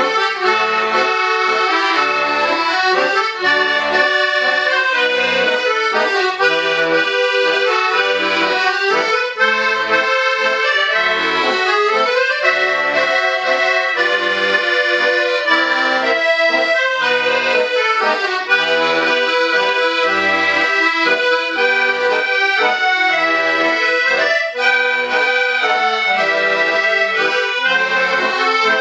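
An ensemble of accordions playing a lively traditional-style piece together, with a running melody over short low bass notes.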